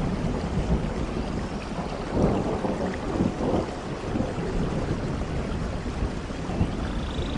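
Rainforest thunderstorm: steady rain with a low rolling rumble of thunder that swells about two seconds in. Faint high chirps sound near the end.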